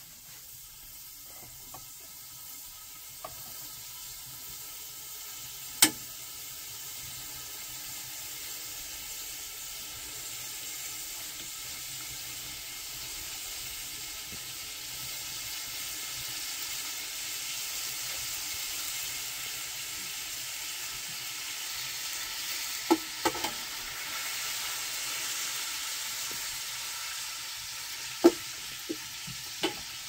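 Potato pieces sizzling as they fry in a pan of oil over a wood fire, the sizzle growing slowly louder. A handful of sharp clicks break in, the loudest about six seconds in and near the end.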